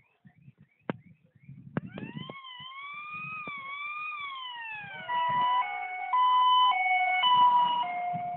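An electronic siren wailing slowly up and down, then switching about halfway through to stepped high-low tones, which are the loudest part. A few sharp clicks come before it starts, with low rumbling underneath.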